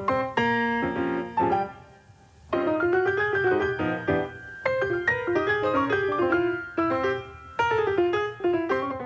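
Piano music: a melody of separately struck notes that ring and fade, with a brief lull about two seconds in.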